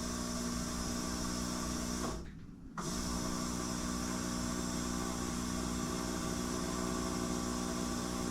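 The electric fuel pump of a 1984 Bertone X1/9's fuel injection runs with a steady hum, priming the system as fuel starts to reach it. The sound cuts out about two seconds in and starts again under a second later.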